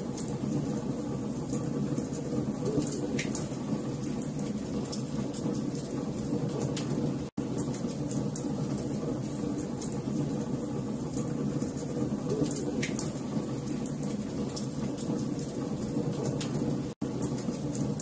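Log fire burning: a steady low rumble of flame with frequent sharp crackles and pops from the wood. The sound cuts out for an instant twice, about seven seconds in and near the end.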